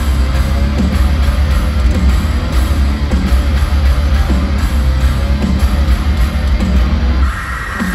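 A live band playing heavy rock music loud through an arena PA, with heavy guitars and a pounding low bass. The bass drops out briefly near the end.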